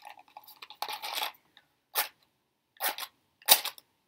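A match struck repeatedly against its box, giving about four short rasps a second or so apart without catching; the strike near the end is the loudest.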